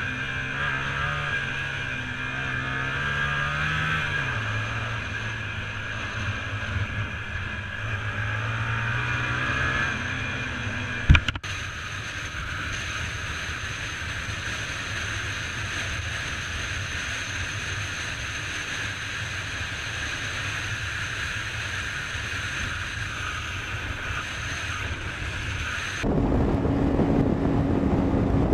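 A vehicle engine in traffic, its note rising and falling as it revs, then a single sharp bang about eleven seconds in. After that comes a steady drone of road and engine noise, and near the end wind buffets the microphone.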